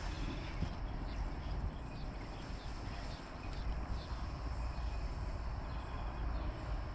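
Faint, steady background noise with a low rumble and no distinct event.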